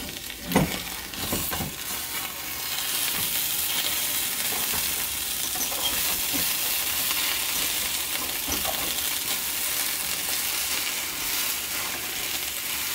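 An egg-substitute omelet frying with a steady sizzle in a nonstick pan. A few short scrapes and knocks come in the first two seconds as a slotted spatula folds the omelet over.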